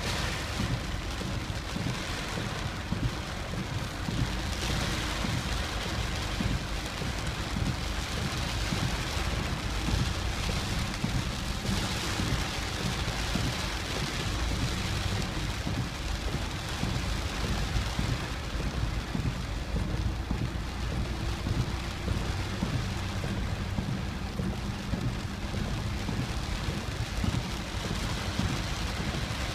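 Steady rushing noise of typhoon rain and high river water, with a constant low rumble underneath.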